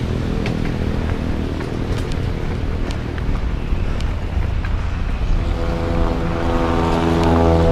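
Wind buffeting a mountain bike's onboard camera microphone with the rumble and rattle of the bike rolling fast down a rocky dirt trail, with scattered sharp clicks and knocks. About five seconds in, steady held musical tones come in and grow louder.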